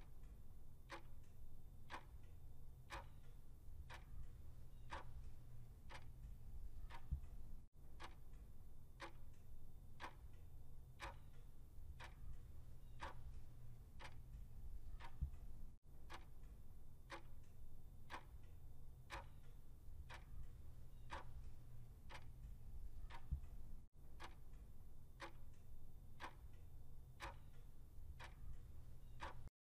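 Clock tick-tock sound effect counting down a quiz timer, about two ticks a second over a low steady hum.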